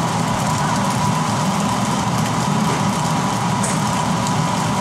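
Steady kitchen noise at the stove: a range hood fan's hum and rush, with a pan of fried rice sizzling on the gas burner and a thin steady whine.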